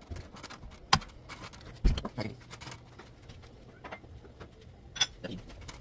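Scattered handling noises: a few sharp clicks and light clinks of a drinking glass and dishes being carried and handled, with a dull thump just before two seconds in.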